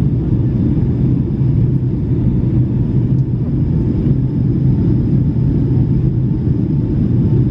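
Steady cabin noise inside a Boeing 757-300 airliner climbing after takeoff: an even, loud low rumble of engines and airflow, with a steady low hum underneath.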